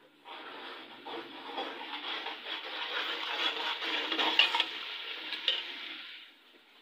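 A spoon stirring and scraping chicken and spices in a pot over the heat, with a frying sizzle under the strokes. There are a few sharp clinks against the pot past the middle, and the stirring stops shortly before the end.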